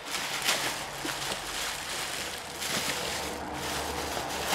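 Plastic bubble wrap rustling and crinkling as it is handled and pulled open by hand, a steady irregular crackle.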